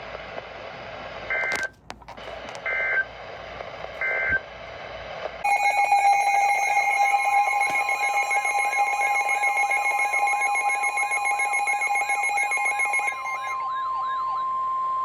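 Three short screeching bursts of EAS/SAME digital data tones, the end-of-message code closing a NOAA Weather Radio warning. From about five seconds in, a weather radio receiver's electronic alarm sounds: a steady beeping tone with a repeated rising warble. A steady 1050 Hz warning alert tone joins it and holds after the warble stops.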